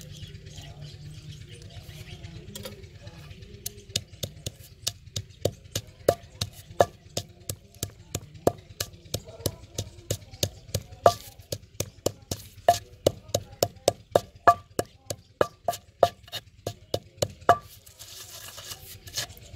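Wooden pestle pounding green chillies in a stone mortar: a steady run of sharp knocks, roughly three a second, starting about four seconds in and stopping shortly before the end.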